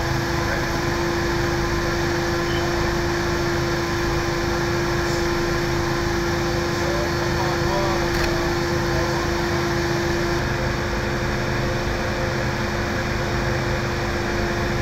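Steady hum of running machinery, with a steady tone in it that cuts off about ten seconds in. Faint voices come through briefly in the middle.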